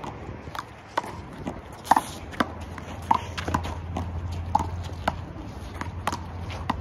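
A one-wall handball rally: a small rubber ball is slapped by hand and bounces off the concrete wall and court, making sharp smacks about twice a second. A steady low hum runs underneath.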